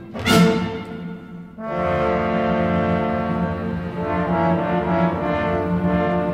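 Orchestral music with brass to the fore: a sharp, loud accented chord about a quarter second in, then the brass and orchestra hold sustained chords.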